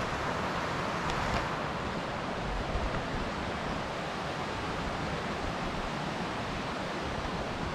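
Mountain creek rushing over rocks: a steady, even wash of flowing water.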